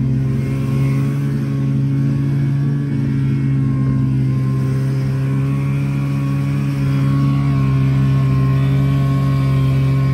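Buran snowmobile engine running steadily under way, heard from the passenger seat, with one unchanging engine note throughout.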